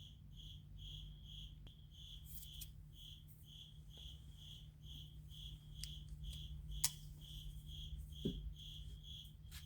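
A cricket chirping steadily, about two short high chirps a second, over a low steady hum, with a few faint clicks.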